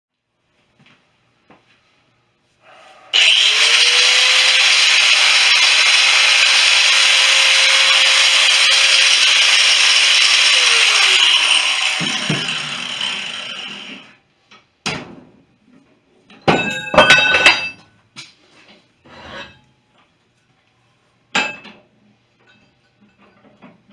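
An electric grinder spins up with a rising whine and grinds metal loudly for about eight seconds, then winds down. Near the end come a few sharp clanks of metal with a short ring.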